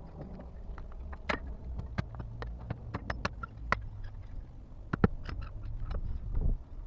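A run of irregular knocks, clicks and scrapes over a low rumble, with one sharp knock about five seconds in.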